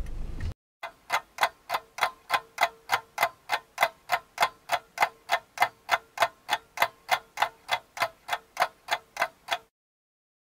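Clock-like ticking sound effect, evenly spaced at about three and a half ticks a second over a faint steady tone, stopping suddenly. Before it, a brief low car-interior rumble cuts off.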